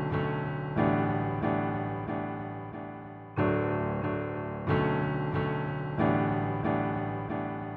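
Background music: slow keyboard chords, each struck and left to fade, with no vocals.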